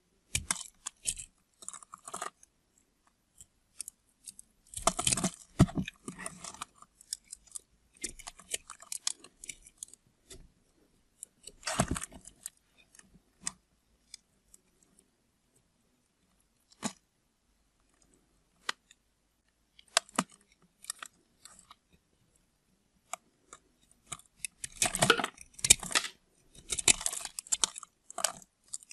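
A knife cutting through a block of soap into cubes: bursts of sharp clicking and scraping strokes with quiet pauses between them, the busiest bursts about five seconds in and again near the end.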